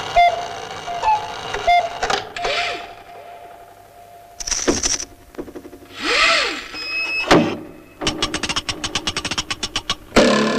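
Animated-film sound effects for mechanical gadgets: a faint steady tone with small blips, two hissing whooshes midway, then a fast rattle of about ten clicks a second near the end.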